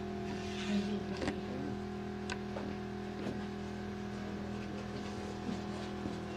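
Steady machine hum with a few light clicks and a small knock.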